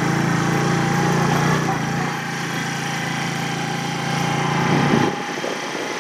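Motorcycle engine running while being ridden; its note swells near the end, and the low engine sound drops away suddenly about five seconds in.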